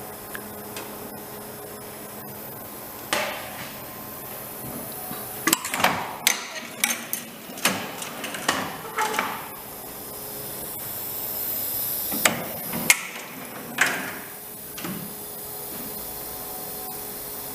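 A machine running with a steady hum, over which come a series of irregular knocks and clatters, busiest in the middle and dying away a couple of seconds before the end.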